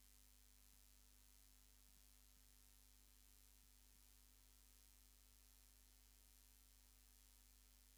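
Near silence: a faint steady electrical hum with hiss, and no sound from the locomotives.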